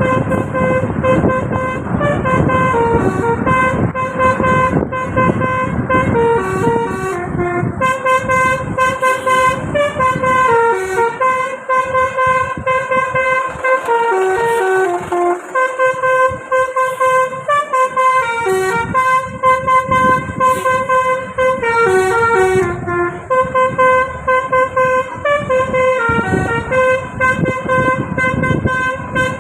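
Tour bus telolet horn, the multi-tone 'basuri' horn, playing a tune continuously: a string of quick notes with phrases that step down in pitch.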